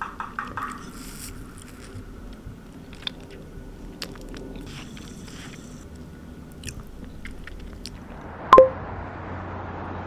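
Close-up eating sounds: rapid chewing at the start, then a metal spoon clicking and scraping in a paper cup of soft, crumbly dessert. Near the end a single sharp click with a short ringing tone, then a steady hum of street traffic.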